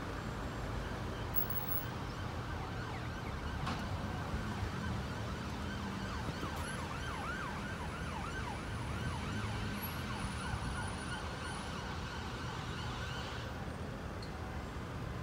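An emergency vehicle's siren in a fast yelp, its pitch sweeping up and down rapidly, starting about three seconds in and fading after about eleven seconds. It sounds over the steady rumble of road traffic.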